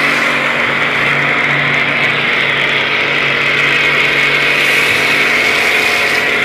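Portable electric car washer running: a steady motor-and-pump hum under the loud hiss of foam spraying from the foam-cannon bottle on its spray gun.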